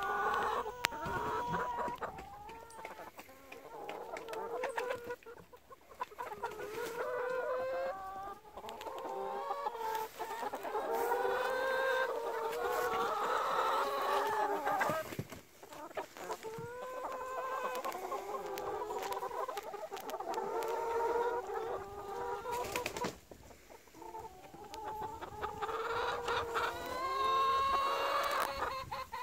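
A flock of chickens clucking, several birds calling over one another, with a few brief lulls.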